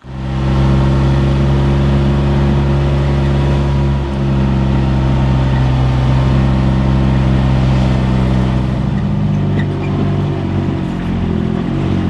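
Vehicle engine running at a steady speed while driving along a gravel farm drive. Near the end the engine note drops and becomes uneven as the vehicle slows.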